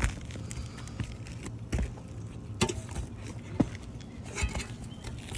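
Scattered knocks and scuffs, about half a dozen spread irregularly, over a low steady hum.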